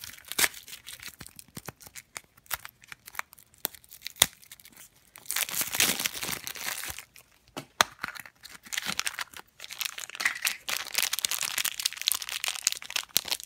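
Plastic toy packaging being crinkled and torn open: a blind-pack pumpkin capsule's label peeled off, a clear plastic bag handled, and a crinkly wrapper opened. Sharp clicks and rustles throughout, with longer stretches of tearing about five seconds in and again from about eight seconds on.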